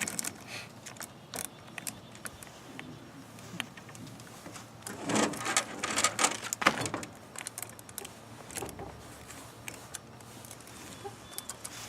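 Chainsaw chain and bar being fitted by hand: scattered metallic clicks and rattles of the chain links, loudest and busiest about five to seven seconds in.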